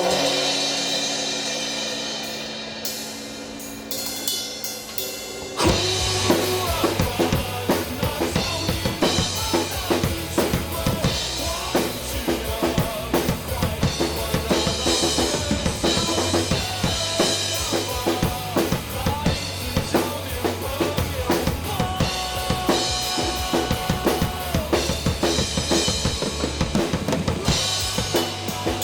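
Rock band playing an instrumental passage: a held chord rings and fades for the first few seconds, then the drum kit and the full band come in together about six seconds in and play on with a steady driving beat.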